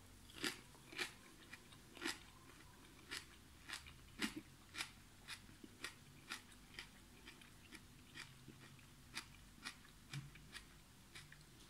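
A person chewing a mouthful of raw Richmond Green Apple cucumber, with faint crisp crunches at a steady rate of about two a second.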